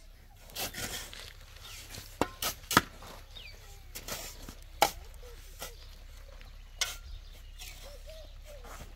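Two steel shovels digging and turning a pile of dry earth: irregular sharp chops and scrapes of the blades into the soil, a few strokes close together about two and a half seconds in and another sharp one near five seconds.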